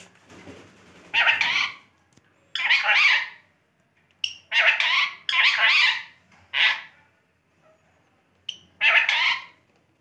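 Indian ringneck parrots squawking: about six harsh calls, each half a second to a second long, separated by short silences, with a couple of brief chirps between them.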